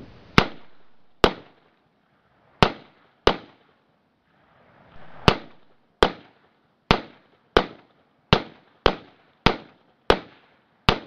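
Rifle shots: about a dozen sharp cracks in an uneven string, several coming in quick succession well under a second apart, each dying away fast.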